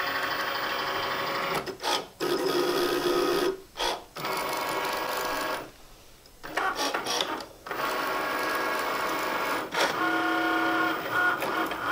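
Cricut Maker cutting machine cutting glitter heat transfer vinyl: its motors whine in runs of a second or two, broken by short pauses, the pitch changing from run to run as the carriage moves the blade.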